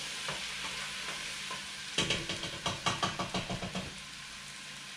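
Chopped onion, celery and bell peppers sizzling steadily in hot olive oil in a 6-quart pot. About two seconds in, a spoon knocks and scrapes against the pot in a quick run of clatters for under two seconds as the vegetables are stirred.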